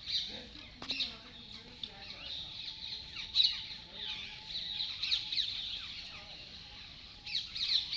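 A dense chorus of many small birds chirping at once, quick downward-sweeping chirps overlapping throughout, with one louder chirp about three and a half seconds in and a brief sharp click just under a second in.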